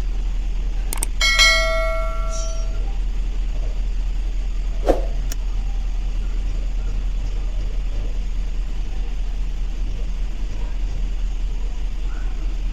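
GMC Yukon XL's V8 engine idling with a steady low hum, an engine the mechanic says is misfiring. About a second in, a short electronic chime rings and fades, with a few sharp clicks around it.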